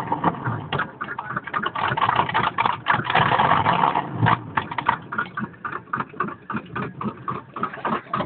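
A 4x4 truck's engine running at idle, with a rapid, irregular clicking over it.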